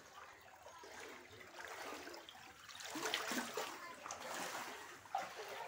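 Floodwater splashing and sloshing, growing louder about three seconds in.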